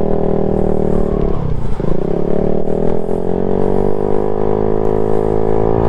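Modified Honda Ruckus scooter engine running under way. Its pitch dips about a second and a half in, then climbs back. The owner says it is running a little rich and needs rejetting.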